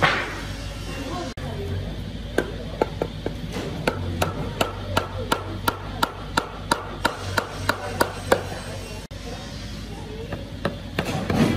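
Heavy steel hammer striking hardwood, driving a glued tenon into a mortise in a carved table leg. It lands a steady run of about three blows a second for some six seconds, starting a couple of seconds in.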